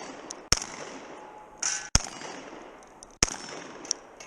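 Shotgun fired three times, each shot about a second and a half apart and followed by a short ringing tail, with a few lighter sharp ticks between shots.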